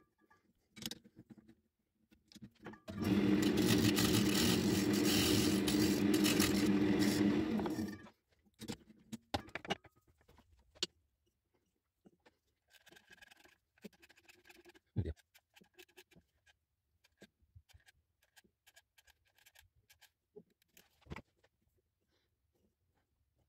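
Wood lathe motor running steadily for about five seconds, starting a few seconds in and stopping. Before and after it come light clicks and taps of metal tools and wood pieces being handled, with two sharper knocks in the second half.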